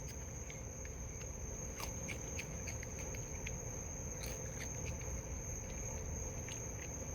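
Steady high-pitched insect chorus of crickets trilling, with faint scattered clicks and ticks.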